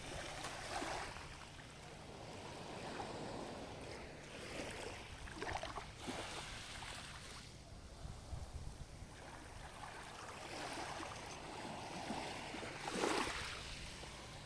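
Small sea waves washing onto the shore, each swell rising and falling away every few seconds, the loudest one near the end.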